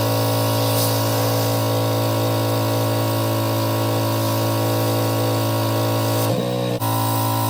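Pressure washer running steadily, its motor humming under the hiss of the water spray. About six seconds in the spray stops for half a second and the motor's pitch wavers, then both resume.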